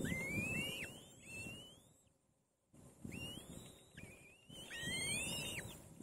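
Kite chicks in the nest giving a series of thin whistled begging calls while being fed, each rising and then dropping sharply at the end, two calling over each other near the end, over a low rumbling noise.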